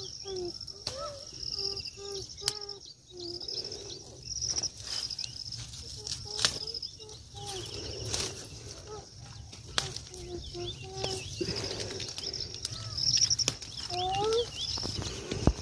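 Birds calling outdoors in short repeated notes throughout, with high trills above, over leaves rustling and sharp snaps as bitter gourds are picked from the vine by hand.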